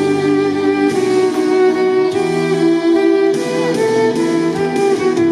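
Violin playing a slow melody of held notes over a recorded backing track with low accompanying notes, played through a loudspeaker.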